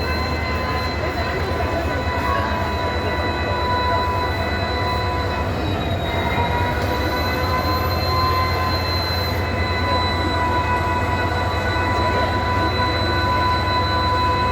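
EMD WDG-4D diesel-electric locomotive's 16-cylinder two-stroke 710 engine idling with its typical hum: a steady low rumble under a high whine of several level tones. The tones dip slightly in pitch about six seconds in and recover.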